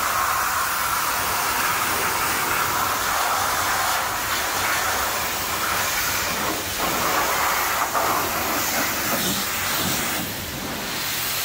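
Pressure-washer wand spraying, a steady hiss of the high-pressure water jet striking a snowmobile's body and the concrete floor; it dips briefly near the end.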